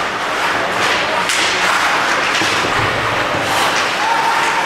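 Ice hockey game noise: a steady wash of skate scraping and crowd noise, with several sharp knocks of sticks, puck and boards.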